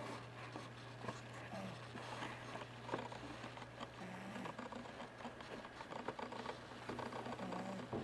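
A sleeping cat snoring, with short squeaky breathing sounds every few seconds and scattered small clicks and rustles.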